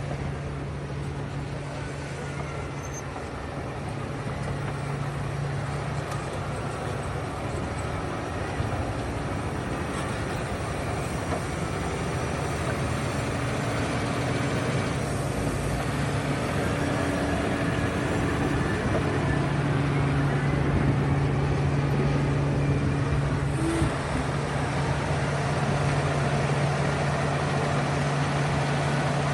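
Heavy vehicle engine of road construction machinery running steadily with an even hum, gradually growing louder.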